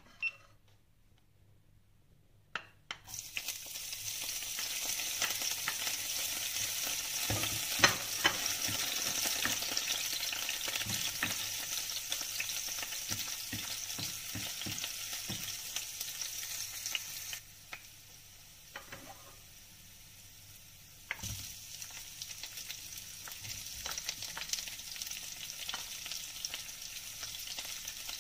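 Chopped garlic and onion sizzling in hot oil in a nonstick frying pan, with kitchen tongs knocking and scraping against the pan as they are stirred. The sizzling starts about three seconds in, after a couple of clicks. It drops for a few seconds about two-thirds of the way through, then picks up again.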